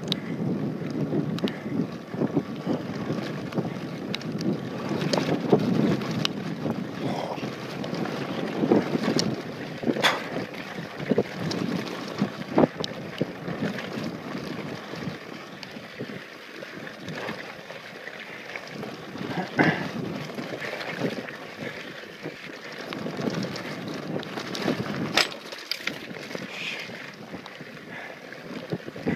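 Wind buffeting the microphone over the rumble of mountain bike tyres on a loose dirt trail during a fast descent, with occasional sharp clicks and knocks as the bike hits bumps. The rumble eases a little about halfway through.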